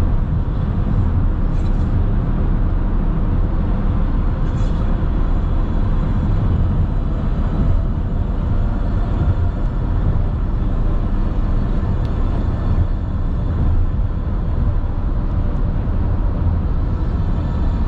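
Steady low rumble of a car travelling at highway speed, tyre and engine noise heard from inside the cabin.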